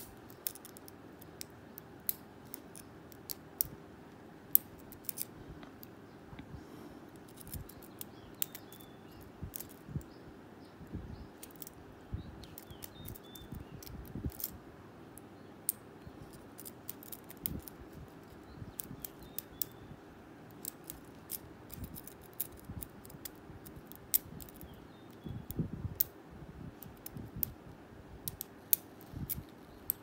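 Lock pick working the pin-tumbler cylinder of a Blossom 50 mm padlock: small, irregular metallic clicks and light scrapes as the pick moves against the pins.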